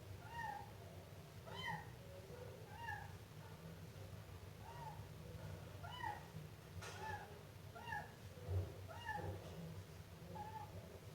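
Siamese kitten meowing over and over, short rising-and-falling mews about one a second, over a steady low hum.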